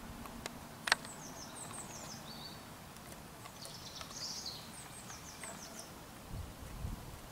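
Hens pecking feed from a plastic feeder: a sharp tap about a second in and a few soft low thuds near the end. Small birds chirp in short, high notes in the background.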